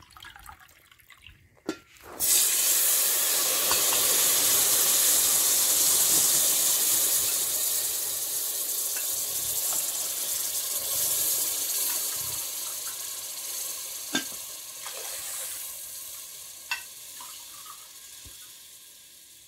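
Water poured from a glass into hot oil and fried gram flour in an aluminium pressure cooker: a loud sizzling hiss sets in suddenly about two seconds in and slowly dies down as the water takes the heat. A couple of sharp clicks come near the end.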